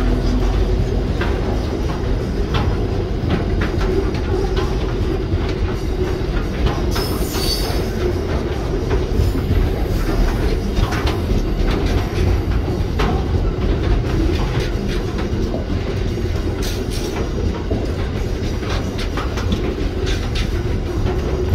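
Container wagons of a freight train rolling past close by: a steady rumble with frequent irregular clicks and knocks from the wheels on the rails, and a brief high squeal about seven seconds in.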